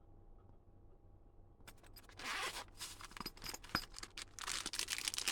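Packaging of the pocket knife being opened and handled: irregular rasping and scraping in short bursts, starting about a second and a half in, with one sharp click partway through.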